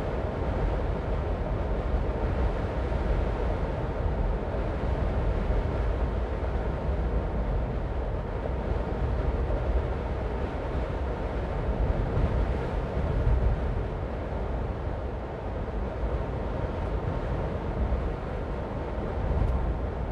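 Car driving along a road: a steady low rumble of road and engine noise, with no sudden events.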